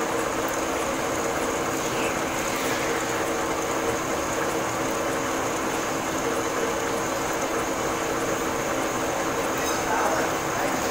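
Metal lathe running steadily with a large steel workpiece spinning in the chuck: a continuous machine whir with a steady hum and a thin high whine.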